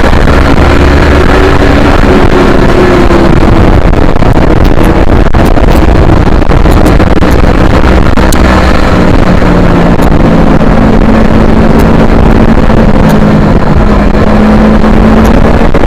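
Yamaha R3 parallel-twin motorcycle engine running hard on a racetrack, very loud, its pitch rising and falling repeatedly, under a steady rush of noise.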